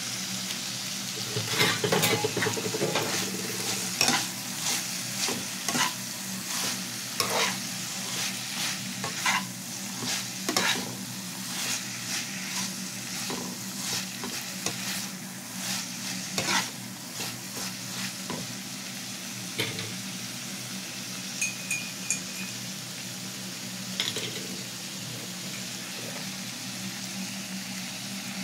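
Shredded cabbage and carrots sizzling in a frying pan while a slotted spatula stirs and tosses them, its strokes scraping and knocking against the pan at irregular moments over a steady frying hiss.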